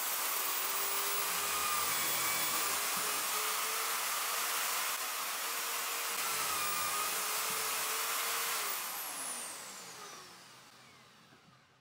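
Electric drill mounted in a homemade drill-press stand running at full speed, boring a 10 mm hole through plywood. It switches off near the end and its whine falls away as it spins down.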